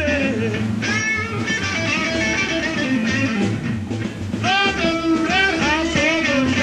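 Background rock music with electric guitar, a steady bass and a singing voice.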